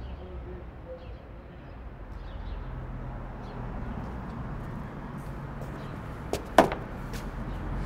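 Steady low outdoor rumble of street ambience, with a sharp knock, two or three hits close together, about six and a half seconds in.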